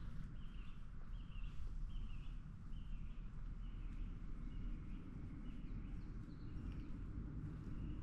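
A bird calling over and over, one short chirp about every half second, fading near the end, over a steady low outdoor rumble.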